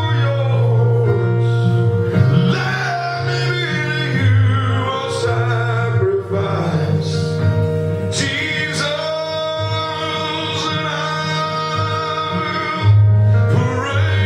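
A man singing a slow gospel worship song over a recorded backing track, with long held, sliding notes above sustained bass notes.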